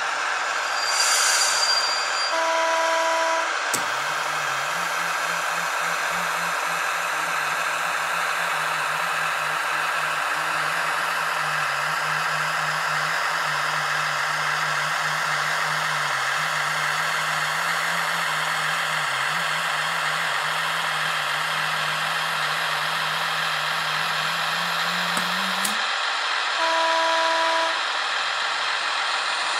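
Sound decoder of a Piko H0 Kaluga locomotive model playing through its small loudspeaker. A short hiss comes first, then a horn toot of about a second. Then a steady low diesel engine runs for about twenty seconds, rises in pitch and cuts off, and a second horn toot follows near the end, all over a constant hiss.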